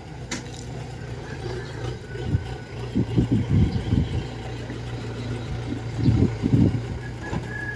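Kubota DC105X combine harvester's diesel engine running through a modified aftermarket exhaust as the machine crawls on its tracks, a steady low hum with louder surges about three seconds in and again near six seconds.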